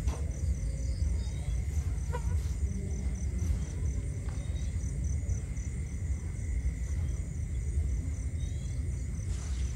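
Crickets chirping steadily, about three chirps a second, over a constant low rumble.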